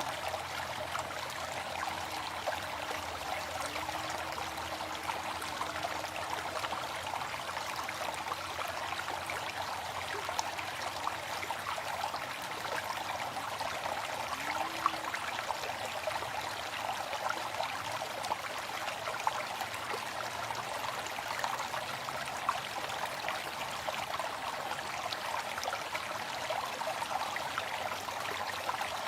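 Small waterfall: a steady, even sound of falling water splashing, with fine droplet splashes throughout.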